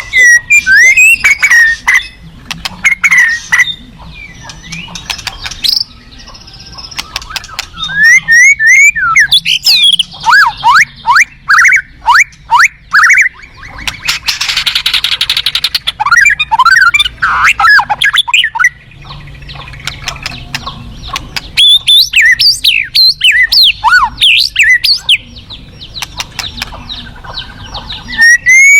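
White-rumped shama singing a loud, varied song of whistled notes and rapid runs of sliding notes, with a harsh, rasping phrase about halfway through.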